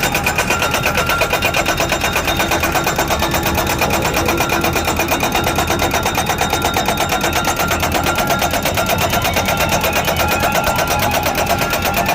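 Tractor-mounted hammer machine for crash-barrier posts running, a rapid, even hammering beat over the tractor's engine, continuing steadily.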